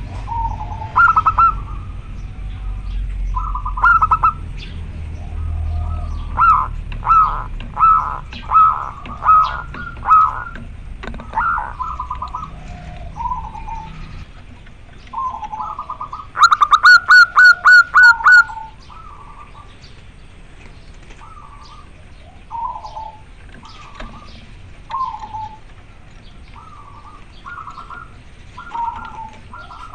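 Male zebra dove (perkutut) calling to a female: repeated bursts of quick staccato cooing notes, with a louder, faster run of notes a little past the middle. A low rumble sits under the first half.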